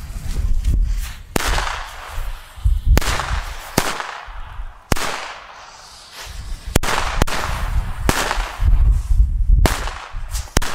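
Bombardos firecracker chain going off on asphalt: about nine sharp bangs at uneven intervals of roughly a second, with a low rumble between them.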